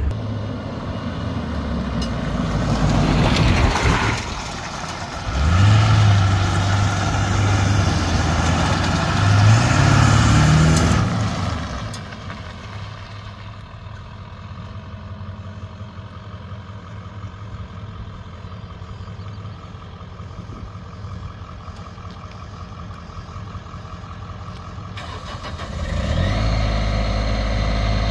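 Ford 7.3 Power Stroke V8 turbodiesel heard from inside the cab, accelerating through the automatic's gears: the engine pitch climbs and drops back at the shifts for about twelve seconds. Then it goes quieter. About two seconds before the end, a louder, steady diesel engine starts running with a whine rising in pitch.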